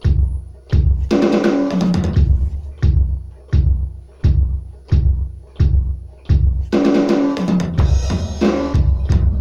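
Electronic drum kit played in a steady groove, a kick-and-snare hit about every three-quarters of a second. About a second in, and again from about seven seconds, the sound thickens with cymbals and fuller fills.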